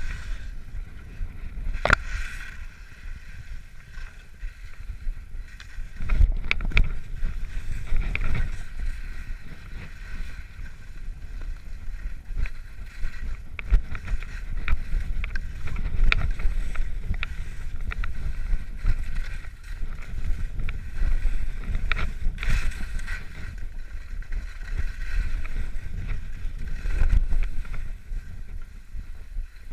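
Skis running downhill through fresh snow: a continuous hiss that swells and eases with the turns, over low wind buffeting on the camera's microphone, with a few sharp clicks and knocks from the skis and poles.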